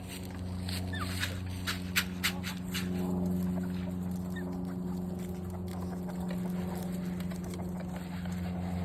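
Chickens milling about with faint short calls, and a quick cluster of sharp taps about one to two seconds in, over a steady low hum.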